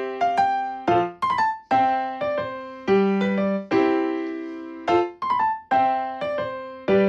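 Background music: a light melody of struck notes that ring and die away, with the same phrase repeating about every four seconds.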